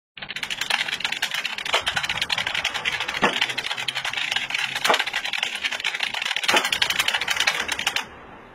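Fast, continuous typing on a computer keyboard, a rapid clatter of keystrokes with a few harder strokes standing out every second or so. It stops abruptly near the end.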